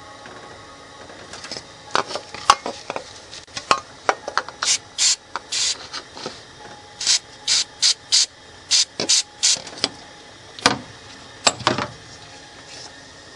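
Aerosol can of carburetor and choke cleaner sprayed in a long series of short squirts onto a cylinder head's intake gasket surface to clean it.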